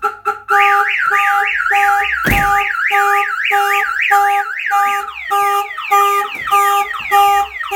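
Viper 5105V car alarm siren going off on a Chevy Avalanche, triggered by opening a door: it cycles through its tones, from quick chirps to a fast up-and-down warble over a pulsing tone about twice a second, then to repeated falling sweeps about five seconds in. A thump sounds about two seconds in.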